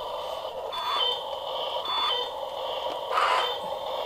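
Electronic sound effects from the Construction Force Grappler RC toy crane's speaker while it is being operated: a steady buzzy machine sound with high beeps that switch on and off, and short hissy surges about one, two and three seconds in.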